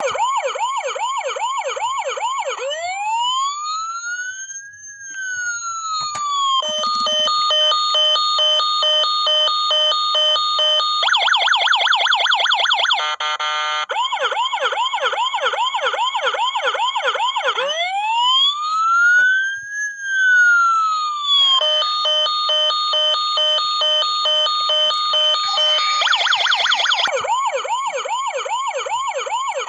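Electronic siren of a toy fire truck cycling through its patterns: a fast warbling yelp, a slow wail that rises and falls over a few seconds, a steady pulsing tone, and a very rapid yelp, then round again.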